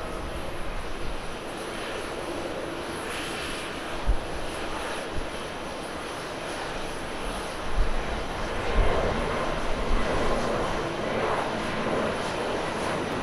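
Airbus A321neo's Pratt & Whitney geared turbofan jet engines at takeoff thrust during the takeoff roll, a steady jet roar that grows slightly louder. A few low thumps around the middle and later on.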